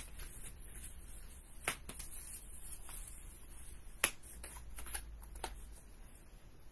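Cardstock being handled: a mounted card panel lifted off its card base and laid back down, sliding and tapping on the paper, with a few sharp clicks of card on card, the loudest about four seconds in.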